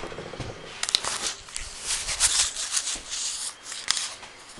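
Rustling and rubbing handling noise, hissy and uneven, with a sharp click about a second in and another near the end.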